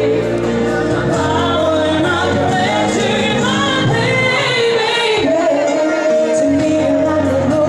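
A female pop singer singing live into a handheld microphone over backing music, both amplified through a stage PA.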